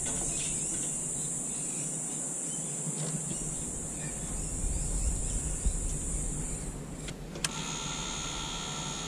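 Jet engine's high-voltage igniter sparking, a steady high-pitched hiss that stops about seven seconds in. A click follows, then a steady whine of several tones.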